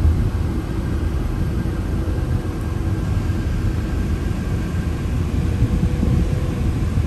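Steady low rumble of a car's engine and road noise, heard from inside the moving car.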